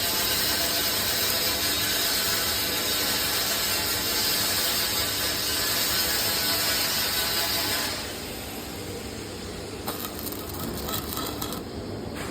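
Electric arc welding: a steady, dense crackle and hiss of the arc, which cuts off about eight seconds in, leaving a quieter background with a few clicks.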